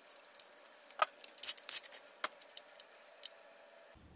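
Light metal clicks and taps of engine parts being handled as a connecting-rod cap and bearing are worked off the crankshaft inside an LS V8 block, a few scattered ticks with a louder cluster about a second and a half in.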